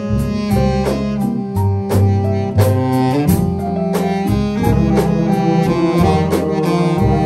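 Jazz big band playing: a saxophone section over trumpets and trombones, with piano, electric guitar and upright bass, and cymbal strikes keeping a steady beat.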